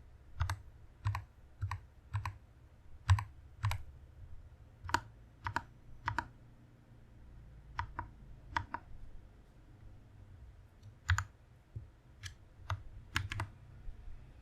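Keys on a Press Play Orbiter67 mechanical keyboard being pressed one at a time, single clicky keystrokes at irregular intervals of roughly one or two a second, with a pause of a couple of seconds in the middle.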